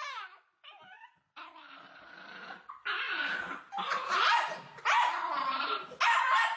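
A dog vocalizing: a short whine that rises and falls at the start, then a run of loud, rough barks about once a second.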